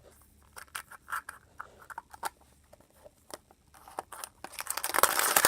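Small plastic items handled by hand: scattered light clicks and taps, then a loud crinkling rustle near the end.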